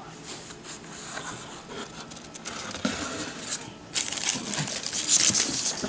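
Paper crinkling and rustling as the paper sheet is lifted off a pizza in its cardboard box, with scrapes from the box. The crinkling is fainter at first and loudest in the last two seconds.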